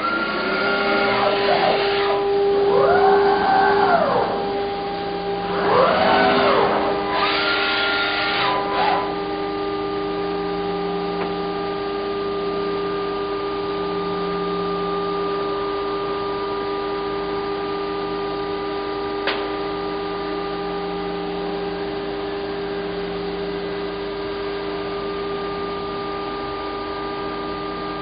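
Reichenbacher ECO 416 C Sprint CNC machining centre running while it machines car door frames. For the first nine seconds or so several whines rise and fall in pitch as the drives speed up and slow down. Then comes a steady whine and hum of several tones, with one sharp click about two-thirds of the way through.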